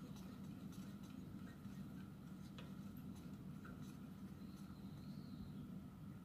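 Faint scratching and light ticks of gloved fingers turning a new spark plug by hand into a motorcycle cylinder head, over a steady low hum.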